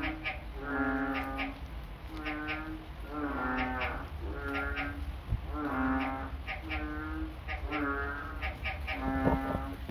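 An animal calling over and over, short flat nasal calls about one a second, with short clicks between them and a low steady hum underneath.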